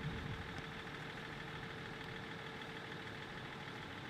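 A vehicle engine idling faintly and steadily.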